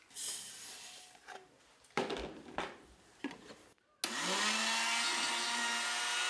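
Electric blender with a stainless-steel jar starting up suddenly after a few seconds of knocks and rustles, spinning up quickly and then running steadily while grinding sugar finer.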